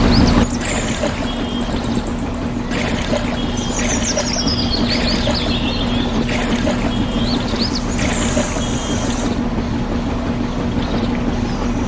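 Water running steadily from a small hose onto wet cement, a continuous splashing hiss. Birds chirp briefly about four to five seconds in and again near seven and a half seconds.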